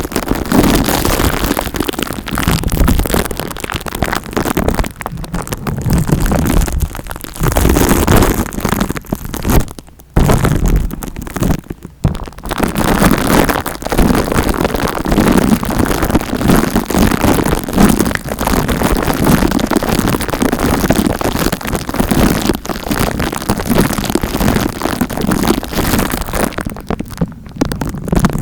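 Loud close-up scratching and rubbing right against the microphone, an ASMR mock scalp massage, with brief pauses about ten and twelve seconds in and near the end.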